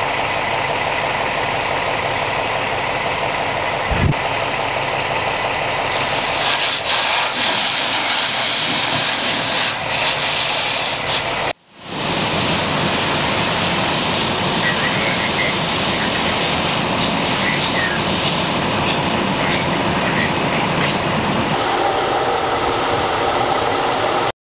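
Fire hose spraying water onto a burning shed: a steady, loud rushing noise over a low rumble. There is a single low thump about four seconds in, and the sound drops out for a moment just before halfway.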